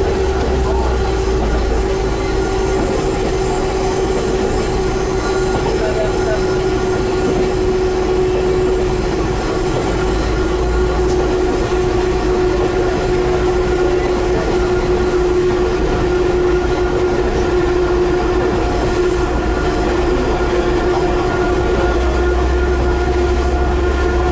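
SNCF X2200-series diesel railcar (X2230/X2232) running along the line: a steady engine and transmission hum over the low rumble of the train, its pitch sinking slightly.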